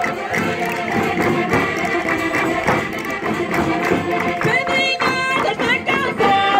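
Portuguese folk dance music playing: instruments holding a steady melody, with voices singing a folk song from about four and a half seconds in.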